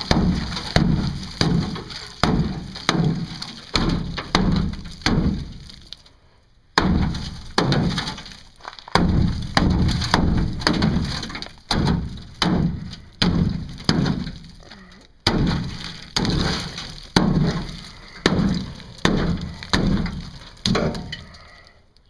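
A hammer repeatedly striking the rusted rear wheel arch of a 2001 Chevrolet Silverado, cracking out Bondo body filler and rotten sheet metal. Sharp blows come about two a second, with two short pauses.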